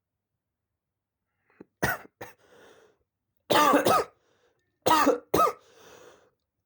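A person coughing in bunches: quiet for nearly two seconds, then two quick coughs, a longer coughing fit, and two more coughs, with faint breaths in between.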